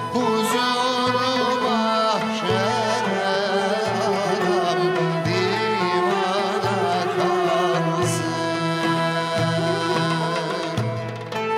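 A male singer performing a Turkish classical (sanat) song with ornamented, wavering melodic lines, accompanied by a traditional ensemble of strings and frame drums keeping a steady beat.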